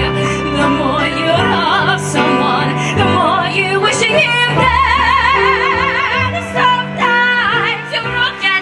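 A singer holding notes with a wide vibrato, some of them drawn out or sung without clear words, over steady instrumental accompaniment in a musical-theatre style.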